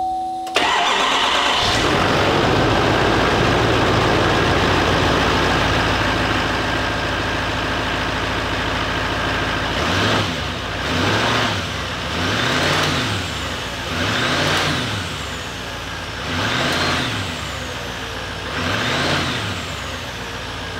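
2018 GMC Sierra 3500HD pickup engine cranked and started, catching at once about half a second in, just as a steady tone stops. It idles steadily, then from about halfway is revved in short blips, about one every two seconds. It runs without the noise the owner had traced to a pushed-in pipe flange leaving a gap.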